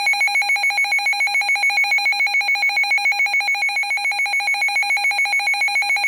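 Midland NOAA weather radio sounding its alert alarm: a loud electronic beep pulsing rapidly and evenly, signalling that a Severe Thunderstorm Warning has just been received.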